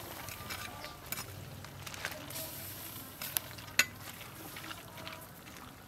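Metal ladle stirring freshly added sliced banana flower in a steel pot of boiling soup: a steady bubbling hiss with a few sharp clinks of the ladle against the pot.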